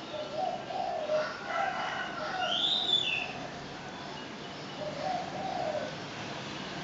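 Doves cooing in two short runs of low calls, with a brief higher bird chirp about three seconds in, over a steady faint background hum.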